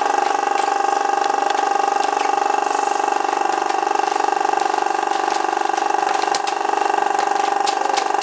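Small electric air pump running with a steady, even hum as it pumps air through a tube into a plastic air column bag, with a few faint crinkles of the plastic film.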